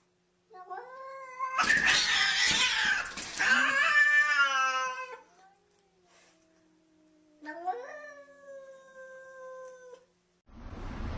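Domestic cat yowling: a long drawn-out caterwaul that turns loud and harsh, then after a short pause a second, quieter wavering yowl.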